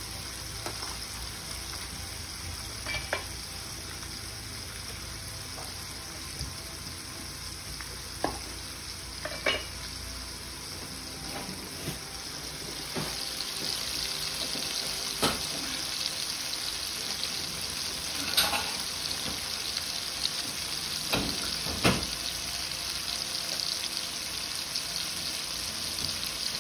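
Shrimp frying in oil with a pat of butter in a pan, giving a steady sizzle that grows louder and brighter about halfway through. A few sharp clicks or pops stand out from the sizzle.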